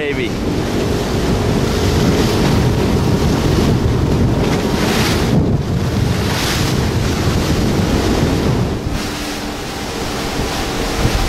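Strong wind buffeting the microphone over the rush and slap of choppy water, with a low steady hum coming in near the end.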